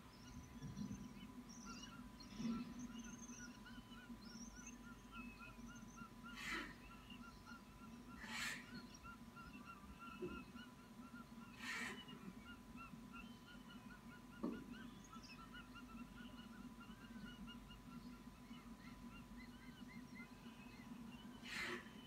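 Young hawks in the nest calling with a rapid run of short, high chirps. Several brief, loud rushing sounds come in among the calls as the chicks flap and scramble over the food. A faint steady tone and a low hum lie underneath.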